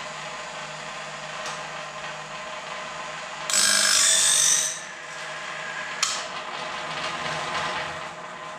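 Woodland Mills bandsaw blade sharpener running, its motor humming steadily while the grinding wheel works along the teeth of a sawmill bandsaw blade. A louder hissing grind lasts about a second midway, and a sharp click comes about six seconds in.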